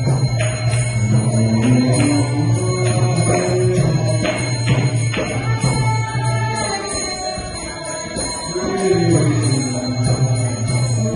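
Devotional Hindu music: a singing voice carrying a melody over a steady low drone, with repeated ringing metallic strikes in the first half.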